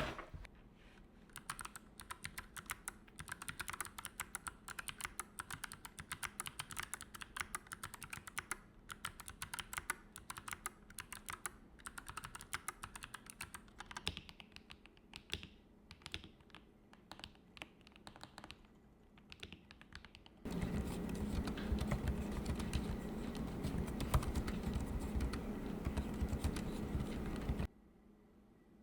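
Typing on a split mechanical keyboard fitted with a mix of brown tactile and clicky switches, a fast run of key clicks. About twenty seconds in the typing turns louder and fuller, with much more low end, for about seven seconds, then stops near the end.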